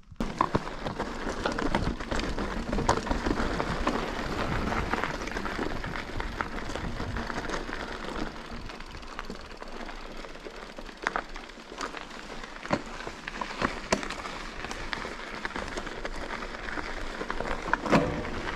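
Mountain bike rolling over rough ground: a continuous rattling crunch with many sharp clicks and knocks, starting abruptly.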